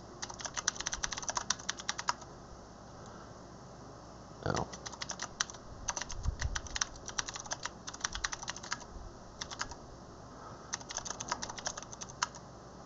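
Typing on a computer keyboard in quick bursts of keystrokes with short pauses between them. About four and a half seconds in there is a single duller, louder knock.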